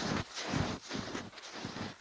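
Footsteps in snow, about two steps a second, with wind on the microphone.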